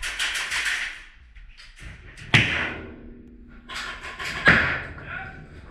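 Bursts of rapid airsoft gunfire, one at the start and another about four seconds in, with two sharp knocks, the first followed by a brief ringing hum.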